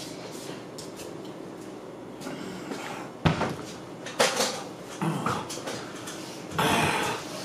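A person sitting down on a chair and settling in: a few knocks and thuds, then a short, louder scraping rustle near the end, over a steady room hiss.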